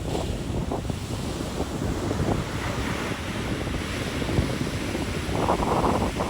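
Sea waves breaking and washing ashore, with a surge of wash late on, while wind buffets the microphone with a low rumble.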